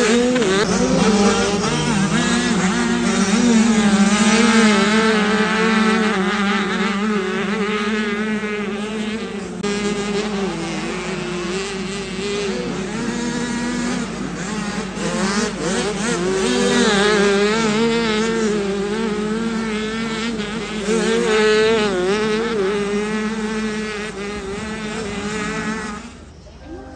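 Several 65cc two-stroke motocross bikes racing past, their engines revving up and dropping as the riders work the throttle and shift gears. The engine noise drops away near the end.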